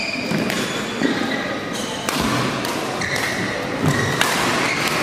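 Badminton rally: several sharp racket hits on the shuttlecock and players' footsteps on the court, echoing in a large hall over the steady noise of play on neighbouring courts.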